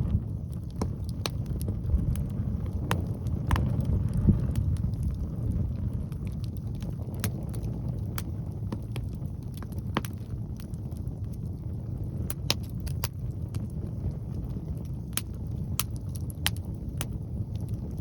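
Log bonfire crackling, with sharp irregular pops and snaps, over a steady low rumble of strong wind buffeting the microphone.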